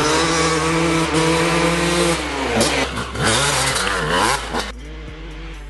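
Dirt bike's two-stroke engine, a 2004 Honda CR250R fitted with an FMF pipe and silencer, revving hard: the pitch climbs and holds, then falls and rises again in quick blips. Near the end it drops to a quieter, lower drone.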